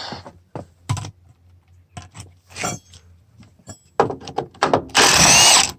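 Loose metallic clinks and rattles, then near the end a cordless power tool runs for about half a second, its pitch rising as the motor spins up.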